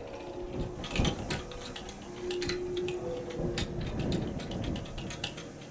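Cessna 172S Skyhawk SP's four-cylinder Lycoming engine at taxi power, a low rumble with a faint steady hum. Many irregular sharp clicks and crackles run over it.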